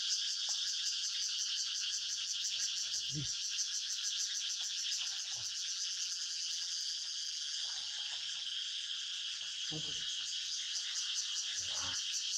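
Dense chorus of insects in a forest, a steady, fast-pulsing high buzz. A few short low calls or voices break in about a quarter of the way in and again near the end.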